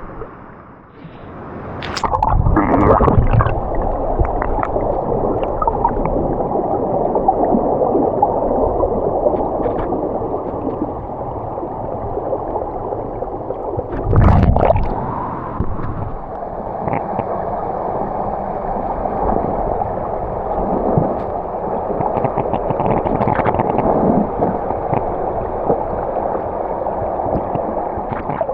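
Creek water gurgling and rushing, a steady muffled sound, with two louder low thumps, one about two seconds in and one about halfway through.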